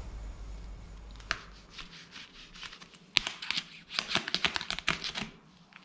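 Gloved hands handling a plastic toy knife and toy weapons, making a run of light plastic clicks and rustles. They are sparse at first and come thick and fast in the second half.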